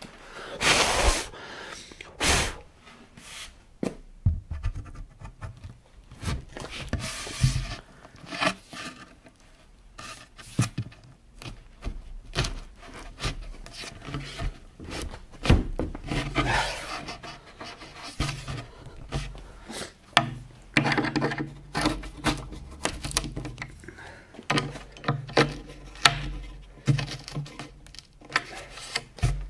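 Wooden cabinet panels being fitted together onto dowels and furniture-connector bolts: irregular knocks, wood-on-wood rubbing and scraping as a panel is pushed down and shifted into place.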